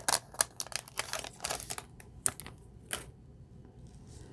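Trading cards being handled: a quick, irregular run of light clicks and flicks as stiff chrome cards are slid and flipped through by hand, dying away after about three seconds.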